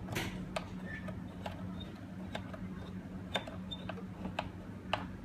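Scattered light clicks and taps, about a dozen at irregular intervals, from small lock parts and hardware being handled during the door lock installation, over a steady low hum.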